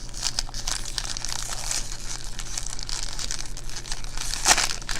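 Plastic snack wrapper crinkling as it is handled and opened, with one louder crackle about four and a half seconds in.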